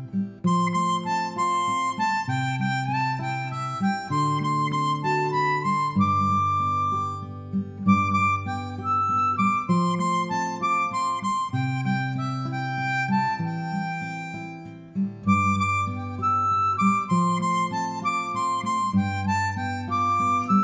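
Instrumental music: a held melody over a bass line that changes note every couple of seconds.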